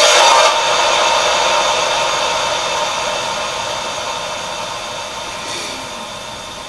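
Loud electronic static hiss from a small device speaker, steady with faint ringing tones in it, slowly fading away.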